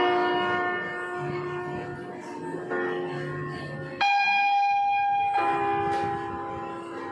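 Background music of slow, bell-like struck notes, each ringing out and slowly fading, with a new chord entering every second or so.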